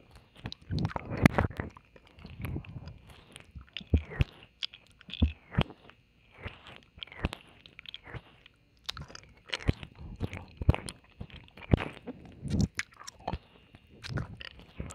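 Wet mouth sounds close to a microphone, an ASMR ear-licking performance: irregular licks, lip smacks and kissing clicks with short pauses between them.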